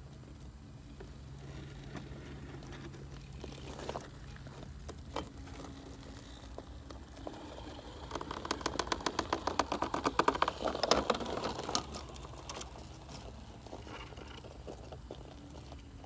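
RC rock crawler (Redcat Gen7 with portal axles) picking its way over broken concrete: its tyres crunch and scrape on the concrete, grit and pine needles. About halfway through comes a run of rapid crackling scrapes, the loudest part.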